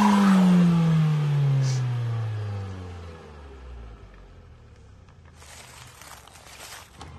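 Off-road vehicle engine revved hard, its note falling steadily in pitch and loudness over about four seconds as the revs die away. A short burst of hiss follows about five to seven seconds in.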